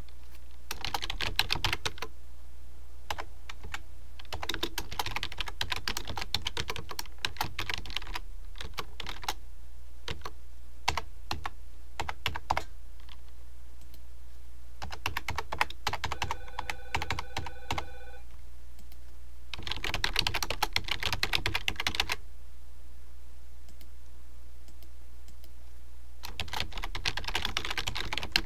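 Computer keyboard typing in several bursts, with scattered single clicks between them, over a steady low hum. About sixteen seconds in, a steady tone with several pitches sounds for about two seconds.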